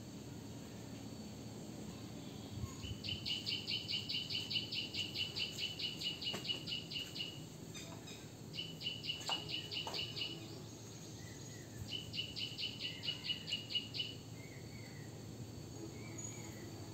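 A small animal's high chirping call, repeated rapidly at about five notes a second in three runs of a few seconds each, over a steady low outdoor background noise.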